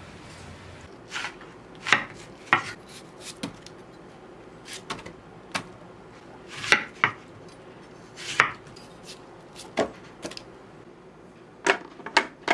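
Knife cutting a watermelon into chunks on a wooden cutting board: irregular sharp chops and knocks, with three quick ones close together near the end.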